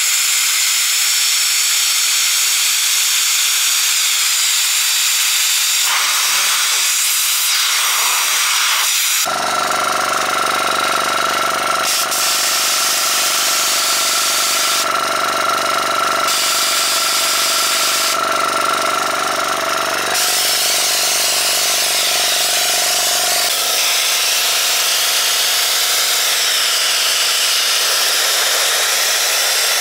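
Compressed air hissing out of an air-gun nozzle fed from a homemade gas-cylinder receiver, the spraying cutting out briefly a few times. About nine seconds in, the diaphragm compressor's electric motor starts and runs with a steady hum under the hiss, refilling the receiver.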